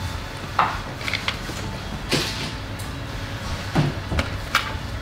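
Hand tools clicking, scraping and knocking against the hard casing of a Bluetooth speaker being worked open, with several sharper knocks among the irregular clatter.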